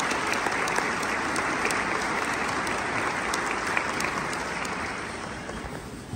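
Audience applauding. The clapping thins and dies away over the last second or two.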